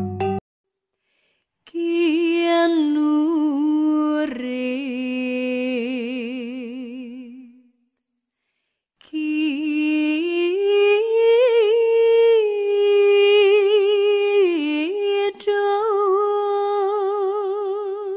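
Soundtrack of a wordless hummed or sung voice holding long notes with a wide vibrato. It comes in two long phrases separated by about a second of silence, the second phrase gliding up to a higher note.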